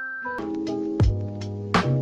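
Background music: a held keyboard note, then about half a second in a beat comes in, with kick-drum hits under keyboard chords.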